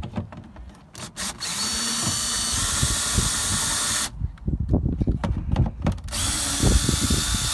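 Power drill with a socket running twice in short steady bursts, backing out the two 8mm screws that hold a tail light. Between the runs there are knocks and rattles of handling.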